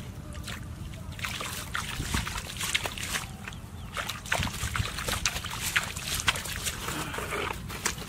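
Hand groping and sloshing through shallow muddy water, with irregular wet splashes and squelches of mud.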